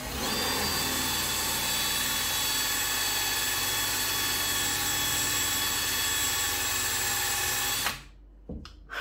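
Cordless drill spinning a router bit to widen a hole in a plastic bottle. It runs at a steady high whine for about eight seconds, then cuts off suddenly near the end.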